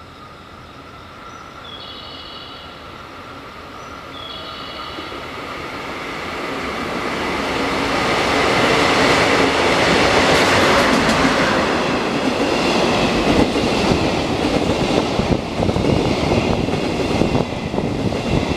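DD51 diesel-hydraulic locomotive hauling a work train of long-rail flatcars through a station without stopping. The locomotive's engine and rail noise build as it approaches and are loudest about nine to eleven seconds in. The flatcars then roll past with a rapid clatter of wheels over the rail joints.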